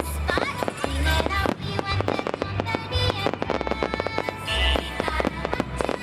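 Aerial firework shells bursting in a dense string of sharp reports and deep booms, over music played along with the display.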